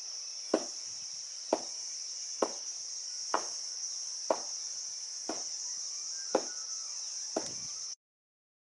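A wooden stick beating drying millet heads spread on the ground, threshing them: eight dull thuds a little under a second apart. Under them runs a steady high-pitched shrill of insects, and both cut off suddenly near the end.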